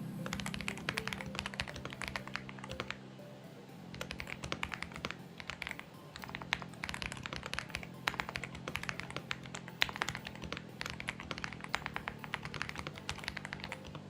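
Typing on a Xinmeng X98 mechanical keyboard, with rapid key clicks in quick runs broken by short pauses, about four seconds in and again about six seconds in.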